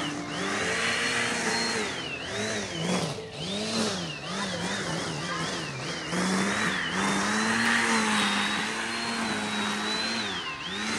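Corded electric string trimmer running, its motor whine dipping in pitch and recovering again and again as the spinning line bogs in long grass. The dips come thick and fast in the first half, then the motor holds steady for a few seconds before dipping once more near the end.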